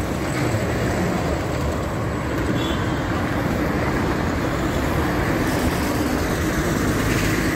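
Steady road traffic: cars, motorbikes and buses passing along a multi-lane highway, a continuous rumble with no distinct events.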